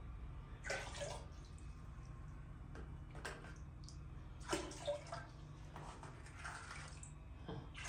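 Faint, intermittent splashing and sloshing of water in a large plastic basin where cut pumpkin pieces soak in clear limewater, in a few short bursts.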